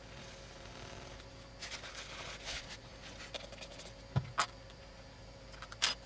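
Small repair tools and parts being handled: light scraping and rustling, then a soft knock about four seconds in and a few sharp clicks.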